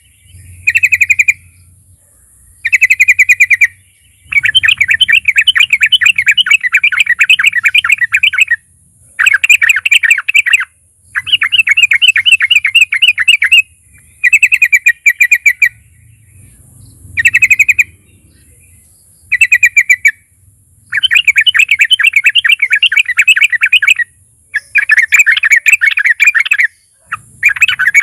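Yellow-vented bulbul (trucukan) singing loudly in phrases of fast, rapidly repeated chattering notes, each phrase one to four seconds long, with short pauses between them.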